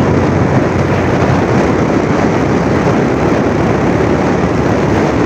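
A steady, loud rush of wind and road noise on the camera of a moving TVS Raider 125 motorcycle at cruising speed, with no distinct engine note standing out.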